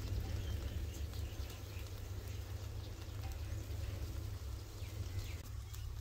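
A steady low rumble, like wind on the microphone, with a few short bird chirps over it.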